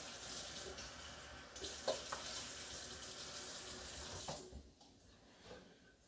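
Kitchen faucet running into a stainless steel sink as a measuring cup is filled with water, shut off about four seconds in.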